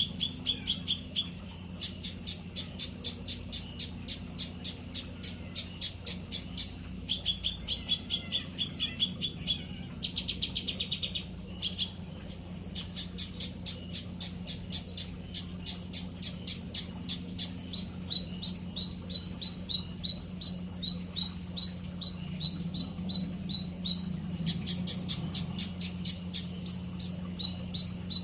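Songbird calling in long runs of sharp, evenly repeated high chirps, about four or five a second, broken by short pauses. A steady low hum runs underneath.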